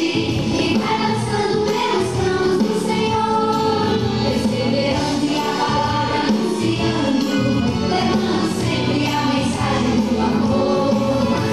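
Song with several voices singing over a steady beat, playing as dance music.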